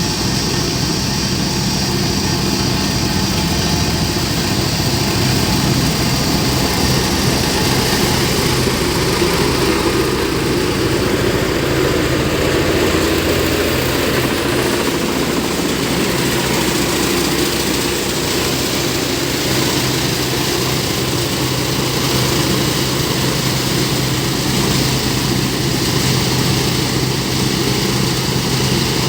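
Diesel engine of a heavy road-building machine running steadily, with an even low drone that barely changes in level.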